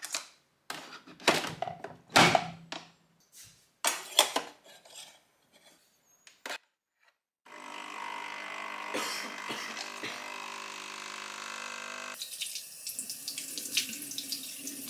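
Sharp clicks and knocks of a Nespresso Pixie capsule machine's lever being lifted and shut, with a mug set down. Then the machine's pump hums steadily for about five seconds as it brews. In the last three seconds a tap runs into a sink with splashing.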